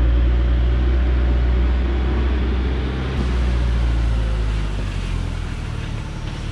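Diesel engine of a log truck loaded with acacia logs, running steadily as the truck crawls along a dirt track, its low note shifting slightly about halfway through.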